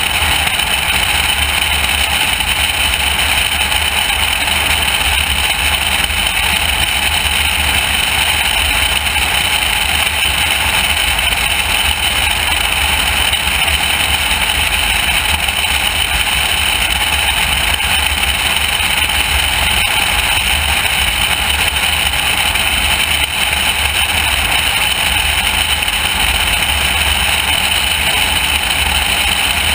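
Loud, steady wind noise on a camera mounted outside a high-wing light aircraft in flight, over the constant drone of the plane's engine and propeller.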